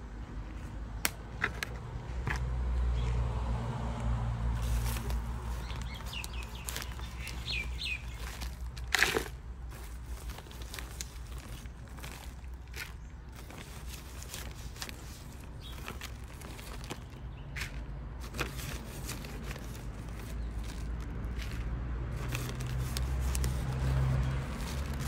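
Plastic sacks of manure and potting mix rustling and crinkling as soil is tipped and scooped into a plastic bucket, with scattered light knocks and a sharper knock about nine seconds in. A few bird chirps come through briefly, over a low steady hum.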